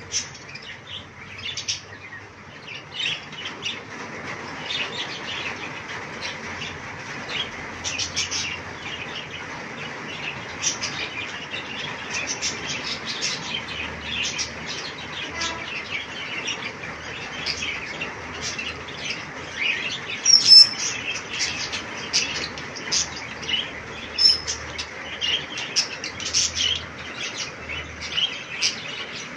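Budgerigars chirping and chattering in a steady run of short, quick calls, with a louder burst about twenty seconds in.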